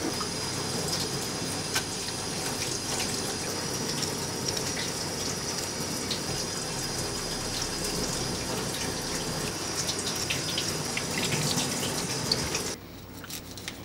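Kitchen tap running steadily, its stream splashing into a gutted fish as it is rinsed out by hand. The water sound cuts off sharply near the end.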